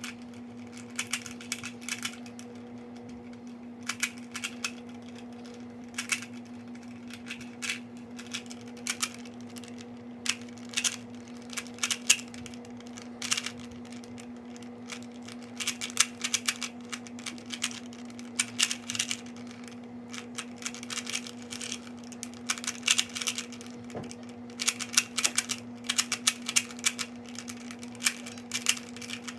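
Rubik's Cube faces being twisted by hand, with rapid, irregular clusters of plastic clicks, over a steady low hum.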